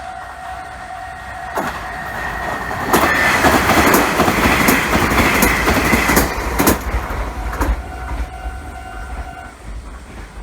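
Japanese railway level-crossing warning signal ringing steadily while a Meitetsu Komaki Line electric train passes through the crossing, its wheels clicking over the rail joints. The train noise swells and fades, and the crossing signal stops near the end.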